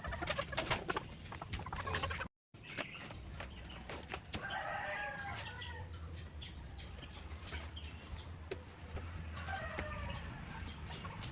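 Chickens clucking, with two drawn-out calls about four and ten seconds in, over a steady low hum. A few knocks come in the first two seconds, and the sound drops out briefly a little after two seconds in.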